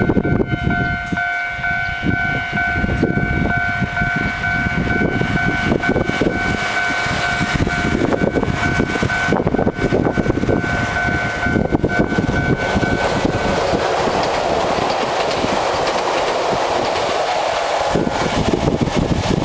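A Nagano Electric Railway train passes over a level crossing while the crossing's warning alarm rings. The alarm stops about two-thirds of the way through, leaving the train's running noise, which dies away near the end.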